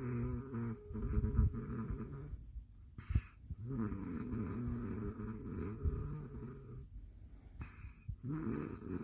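A man snoring in his sleep: two long, loud, pitched snores of about three seconds each, with a short sharp breath between them, and a third snore starting near the end.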